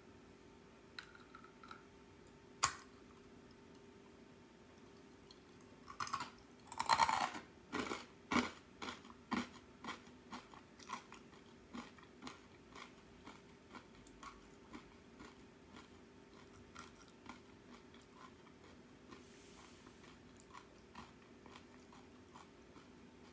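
A crisp, ridged arare rice cracker is bitten with a loud crunch about six seconds in, then chewed with crunches about twice a second that grow steadily fainter. A single sharp click comes a few seconds before the bite.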